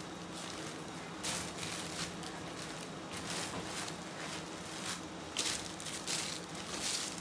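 Clothes and plastic garment bags rustling and crinkling in irregular bursts as a pile of clothing is rummaged through by hand.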